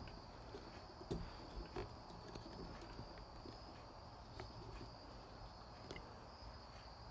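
Faint, steady high-pitched chirring of crickets and cicadas, with a few soft knocks about a second in and again near the middle and near the end.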